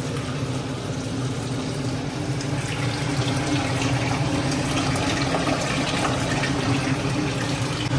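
A thin stream of water running from a Kent RO water purifier's tap into a metal pot, a steady filling sound over a steady low hum.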